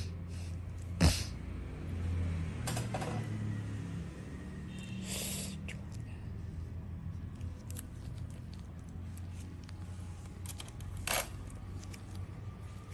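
Steady low hum with a few short, sharp clicks, the loudest about a second in and another near the end.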